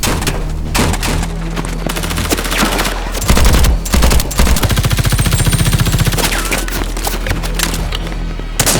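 Bursts of automatic gunfire, with a fast run of rapid shots around the middle, over a low, steady music bed.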